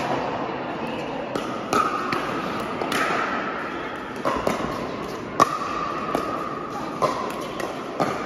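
Pickleball paddles hitting the hard plastic ball in a doubles rally, a sharp pop about once a second, in a large indoor hall.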